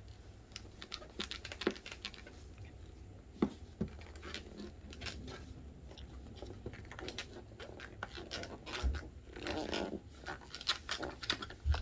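Hands working Play-Doh and its tubs on a tabletop: scattered small scrapes, taps and clicks.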